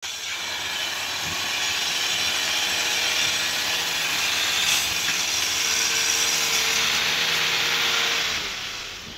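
Kubota M6040SU tractor's diesel engine running as it hauls a trailer loaded with rice sacks through a muddy paddy, heard close up as a loud, harsh, steady noise with a faint hum under it. It drops away about eight and a half seconds in.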